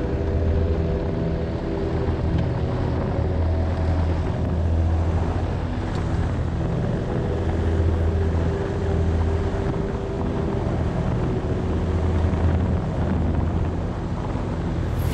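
Motorcycle engine running steadily under way, its pitch rising and falling a little.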